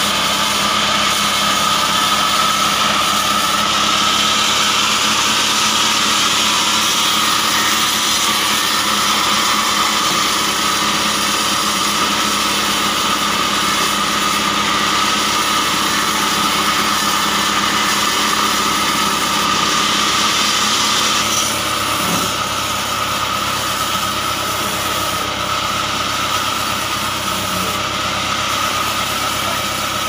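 Sawmill band saw running and ripping a hollow acacia log into boards, a steady whine with a hiss of cutting. About two-thirds of the way through the cutting hiss thins out while the saw keeps running.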